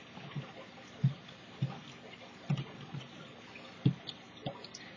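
Cardboard toilet-paper roll dabbed in wet paint and pressed onto a painted sheet to stamp circles: about six soft, irregular, wet-sounding taps over low background hiss.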